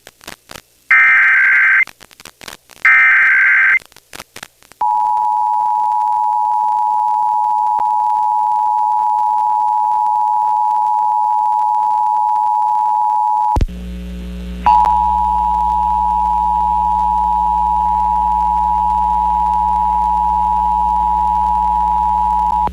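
Emergency Alert System broadcast tones. In the first few seconds come two one-second bursts of the digital SAME header, then the two-tone EAS attention signal (853 and 960 Hz together) sounds steadily for about nine seconds. The tone breaks off and a mains hum comes in; about a second later the attention signal sounds again over the hum.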